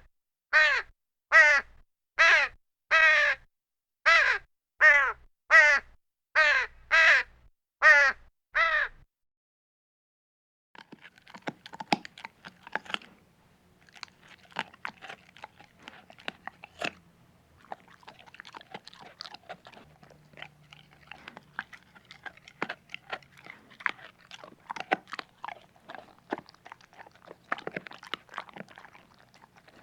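A crow cawing about a dozen times in a steady series of harsh, falling calls. After a short pause, a long stretch of irregular crunching and clicking.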